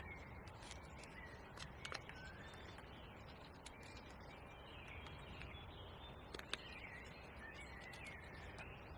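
Faint woodland birds calling in short chirps and whistles over a steady hush of background noise, with a few sharp clicks about two seconds in and again past six seconds.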